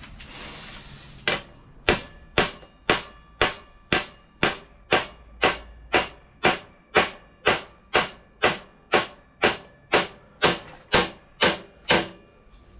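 Hammer striking sheet steel in a steady rhythm, about two blows a second with a short metallic ring after each, as a lip is knocked over along the edge of a hand-made panel.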